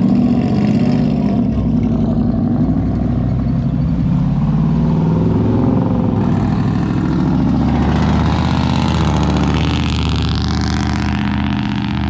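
Pickup trucks and a car driving past one after another, their engines accelerating through a curve, the engine pitch rising and falling as each passes.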